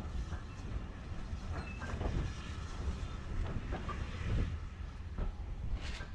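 Heritage railway passenger carriage running along the track: a steady low rumble with irregular clanks and clicks from the wheels and couplings, and a short hiss near the end.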